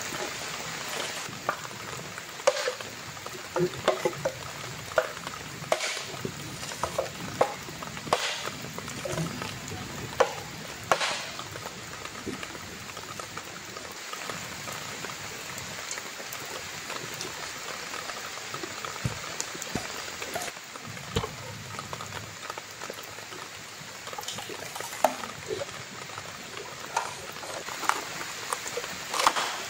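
Sharp knocks and cracks of a machete chopping and splitting bamboo poles, coming irregularly and thickest early on and again near the end, over a steady hiss.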